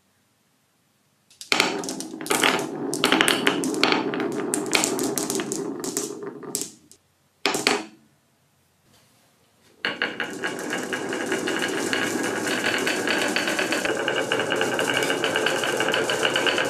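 Many glass marbles clattering on a wooden marble-run track. After a short pause they set off together down its wavy grooves in a steady, even rattle.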